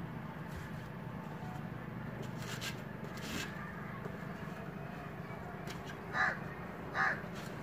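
A crow cawing twice near the end, two short calls under a second apart, over a steady low background hum.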